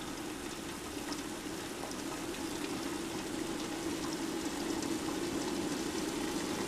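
Water at a full rolling boil in a Groen TDB 6-10 electric jacketed tilt kettle: a steady bubbling hiss that slowly grows a little louder.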